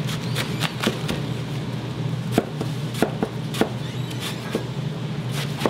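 Knife chopping on a cutting board in irregular strokes, some sharper knocks among them, over a steady low hum.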